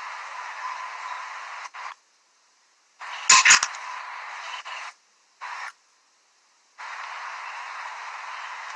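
Hiss from a breaking-up call connection, cutting in and out to dead silence several times, with a brief burst of loud crackling about three and a half seconds in.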